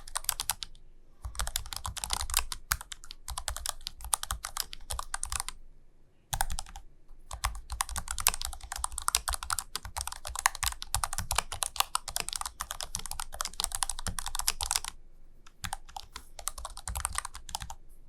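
Typing on an ASUS ROG Falchion RX Low Profile keyboard: fast runs of keystrokes broken by a few short pauses.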